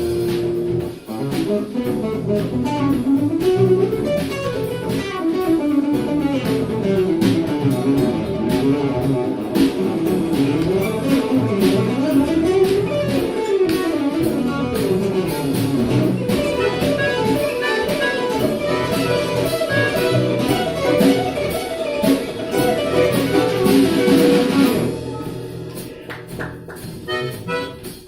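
Live instrumental ensemble playing jazz-style music: a fast melodic line winds up and down over a steady accompaniment, and the playing drops quieter near the end.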